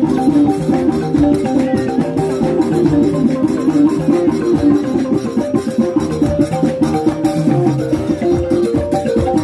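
Balafon music: wooden-keyed xylophones playing a fast, repeating melody of quick struck notes, with drum accompaniment.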